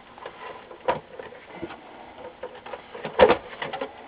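Plastic back case of a Samsung SyncMaster 204B LCD monitor being worked loose and lifted off the metal chassis: scattered clicks and knocks of plastic, with the loudest cluster of clicks about three seconds in as the cover comes away.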